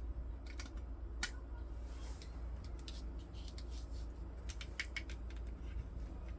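Scattered light clicks and taps of small objects being handled, in two loose clusters, over a low steady hum.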